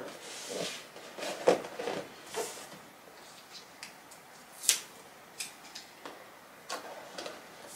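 Hands handling white cardboard gift boxes, ribbon and a paper tag card: scattered rustles, taps and light knocks, with one sharp click a little after halfway.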